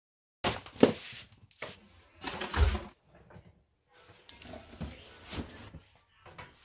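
Household items being handled and moved about in a small laundry room: a series of knocks, clatters and rustles. The loudest is a heavy thud about two and a half seconds in.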